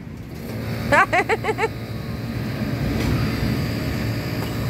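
A steady low mechanical hum that swells slightly after about two seconds, with a brief phrase of speech about a second in.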